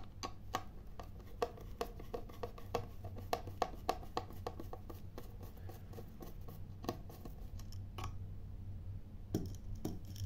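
Hand screwdriver backing out a small screw that holds a battery charger's circuit board in its plastic case: a run of small, irregular clicks and scrapes as the bit turns. It thins out after about six seconds, with a couple of louder knocks later on.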